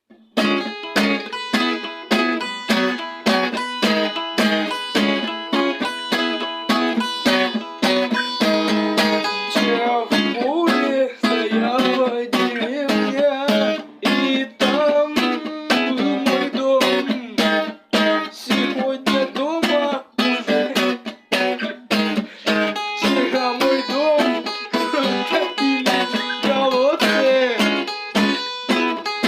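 Acoustic guitars starting up just after the opening: steady rhythmic strumming, with a lead line of gliding, bent notes played over it part of the way through. The recording has almost no low bass.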